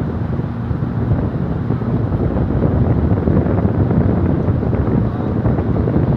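Wind buffeting the microphone on the open bow of a ferry under way: a loud, steady low rumble with no separate events.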